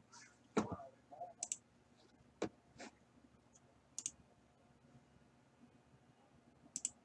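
Faint, scattered computer clicks, mouse and keyboard: about half a dozen separate sharp clicks a second or more apart, some in quick pairs.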